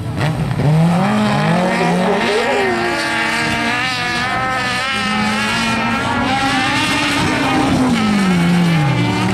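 Autocross special race cars' engines revving hard, the pitch repeatedly climbing and dropping as the drivers work the throttle through the laps.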